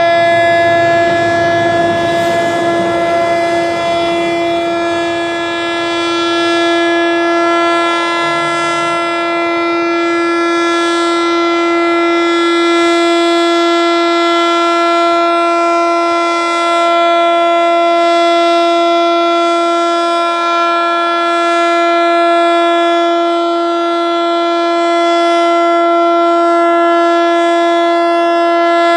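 ASC T-121 AC/DC outdoor warning siren sounding a steady alert, one unwavering tone of about 342 Hz that swells and dips slightly every few seconds as the rotating head sweeps round. This unit seems underpowered, not getting enough voltage.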